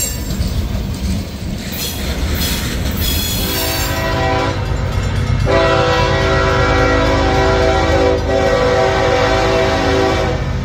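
Freight cars rolling past with a rumble and clacking wheels, then about three and a half seconds in a CSX freight locomotive's horn starts sounding, a chord of several notes held in long blasts, with a short dip about eight seconds in and a break near the end.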